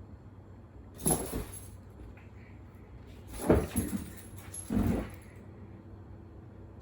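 Dog vocalizing in three short bursts, about a second in, at three and a half seconds and at five seconds: a dog trying to protect its people.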